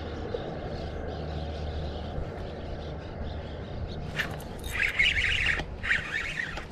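Spinning reel being cranked as a hooked crappie is reeled in, its gears giving a crackling chatter in two spells over the last few seconds, over a steady low hum.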